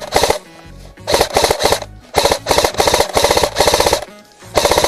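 AK-style airsoft rifle firing a string of short full-auto bursts, about seven, each a rapid rattle of shots lasting a fraction of a second.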